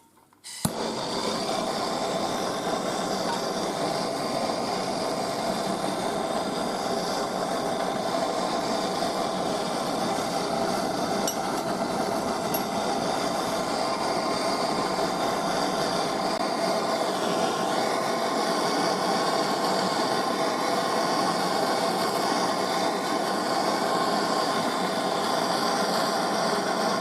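A metalworking machine tool running steadily with continuous cutting or grinding noise, starting abruptly about half a second in.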